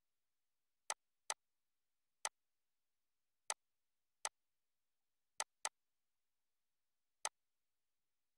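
Computer mouse clicks: eight short, sharp single clicks at irregular intervals, two of them coming in quick pairs.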